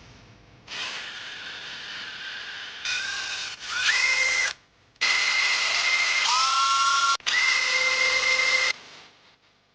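Handheld electric drill run in about five trigger pulls, the motor whining up in pitch and holding steady each time before stopping. The longest runs come in the second half.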